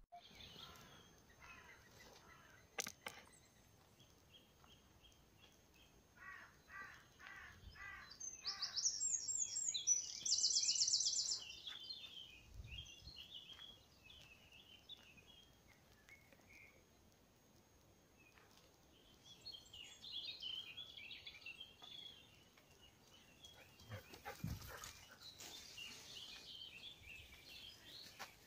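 Wild songbirds singing and calling among trees. Scattered chirps and runs of repeated notes lead to a loud, fast, high trill about nine seconds in, and softer chattering calls return in the second half.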